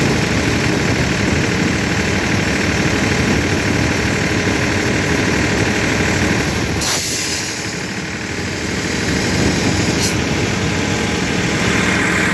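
Airpress BA900 5.5 kW electric piston air compressor running steadily. About seven seconds in there is a sudden burst of hissing air, and a short hiss near ten seconds.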